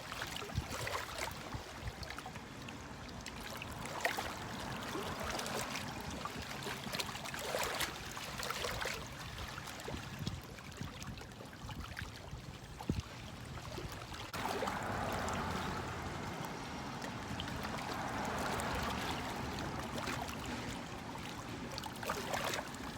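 Water lapping and trickling, with scattered small clicks; it grows a little louder about two-thirds of the way through.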